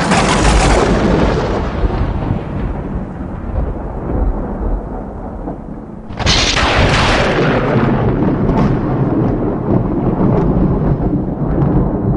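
Thunder: a sharp thunderclap that trails into a long rolling rumble, then a second clap about six seconds in that rumbles on again with scattered crackles.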